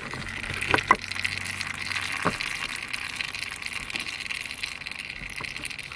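Used engine oil from a Yamaha YFZ450R's drain hole trickling and dripping into a drain pan, a steady pattering trickle. A few sharp clicks sound in the first couple of seconds.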